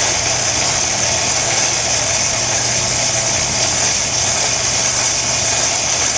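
Corded electric drill running steadily, spinning a cylinder hone inside the aluminum bore of a Briggs & Stratton 5 HP flathead block, grinding off the glazing and scoring on the cylinder wall.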